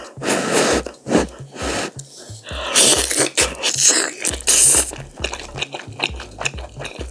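Close-miked eating sounds of a person biting and chewing meat off a braised pork backbone, with several loud bursts between about three and five seconds in. Background music with a steady beat plays throughout.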